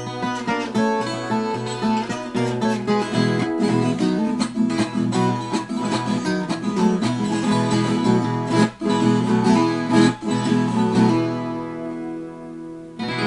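Background music: acoustic guitar, plucked and strummed, with a chord left ringing out near the end.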